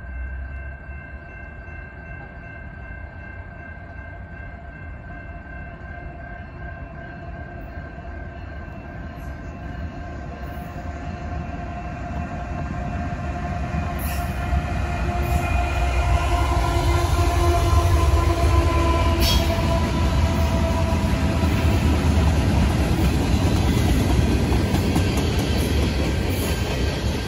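Canadian National freight train led by two GE diesel locomotives (an ES44AC and an ET44AC) approaching and passing. The sound builds from a distant rumble with a few steady tones to a loud rumble of engines and rolling wheels about halfway through as the locomotives go by. It then settles into the steady roll of hopper cars, with a few sharp clicks.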